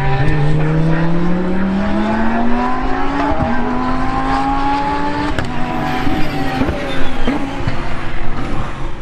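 GT race car engine accelerating hard, its pitch climbing steadily and dropping at gear changes about three and a half and five seconds in; more engine notes join in over the last few seconds.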